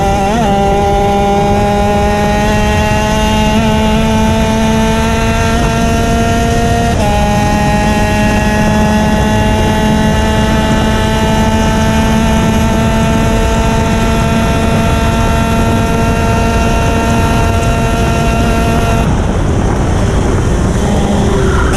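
Racing kart engine running at high revs, its pitch creeping slowly upward with a small step about seven seconds in. Near the end the note breaks up for a couple of seconds, then returns unsteady. A steady rush of wind and road noise runs under it.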